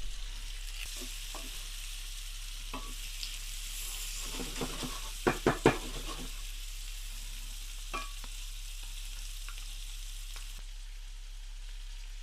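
Shrimp frying in a pan of melted butter with mushrooms and garlic: a steady sizzle, with occasional sharp clicks from stirring and turning in the pan, the loudest three in quick succession about five seconds in.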